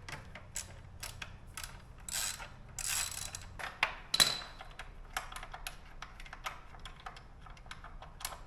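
Socket ratchet clicking as a 10 mm fastener is worked loose, in short bursts of strokes and runs of rapid clicks, with one sharp metallic clink about four seconds in.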